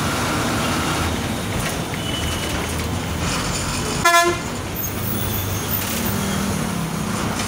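Steady engine and road noise heard from inside a moving bus in traffic, with one short vehicle horn toot about four seconds in.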